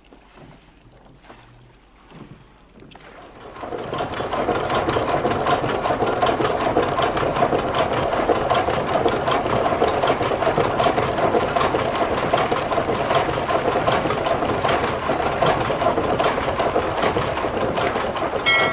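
A machine running with a fast, dense, even clatter that starts about three and a half seconds in and holds steady. A whistle-like tone begins right at the end.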